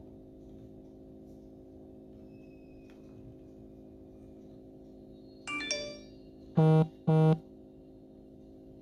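Two loud electronic beeps about half a second apart, just after a shorter electronic chirp, over a low steady hum.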